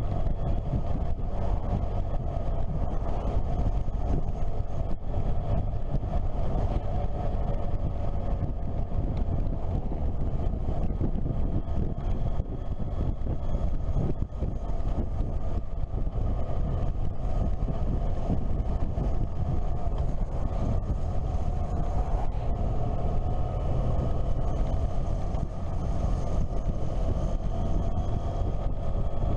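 Motorcycle engine running at road speed under steady wind noise, its pitch drifting slightly up and down with the throttle.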